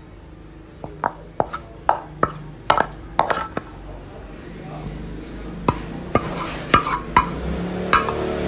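Wooden spatula knocking and scraping against the pan and the ceramic plate as stir-fry is pushed out onto the plate: a run of sharp clacks in quick succession, a short lull, then another run of clacks.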